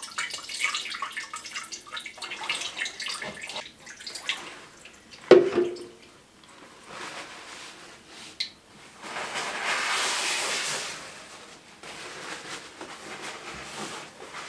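Water poured through the top of a radiator, trickling and dripping down inside it. About five seconds in comes a sharp knock with a brief ring, the loudest sound. Near ten seconds there is a steady two-second rush of water.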